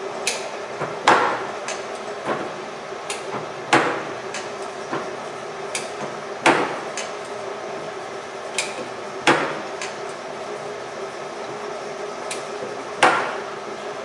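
Six-station hex turret on a LeBlond engine/turret lathe being indexed by hand from station to station: a heavy metallic clunk each time it locks, five times roughly every three seconds, with lighter clicks in between, over a steady machine hum.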